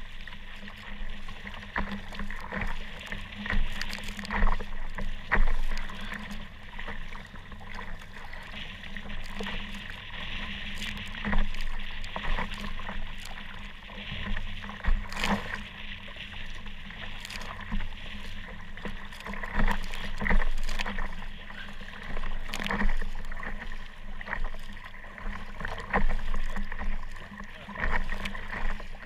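Kayak moving through choppy, wind-driven water: waves splashing and slapping against the hull, with irregular sharp knocks and surges of splashing.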